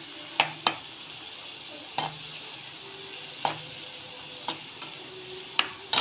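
Chopped onions sizzling in hot oil in a kadhai, with a slotted steel spatula clinking and scraping against the pan about eight times as they are stirred.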